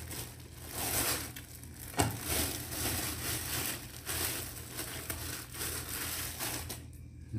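Thin plastic bread bag crinkling and rustling as khubz flatbread is pulled out of it by hand, with one sharp tap about two seconds in.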